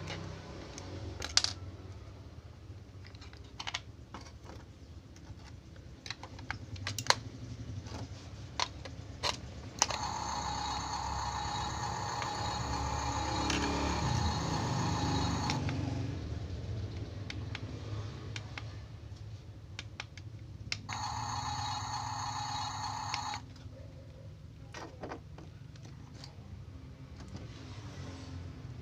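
Plastic clicks and taps from handling a Yigong YG258-F RC toy bulldozer, then two bursts of buzzing whir from the toy, one of about five seconds and a shorter one near the end.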